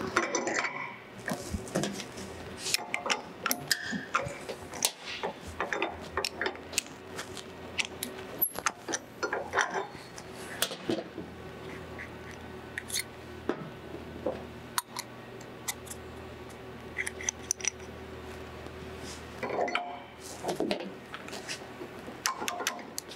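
Steel tool-holder parts clinking and clicking as a collet chuck's nut and collet are handled, unscrewed and refitted by hand: a long run of light metal taps and knocks, some with a short ring.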